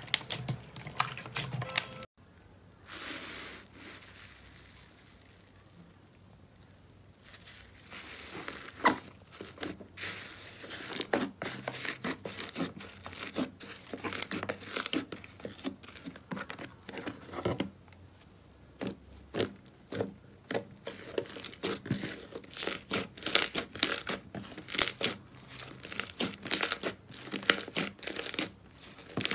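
Hands squeezing and kneading slime, giving rapid wet clicks and crackles as trapped air pops. Near the start there is a quieter stretch of a few seconds, after which the popping grows dense again.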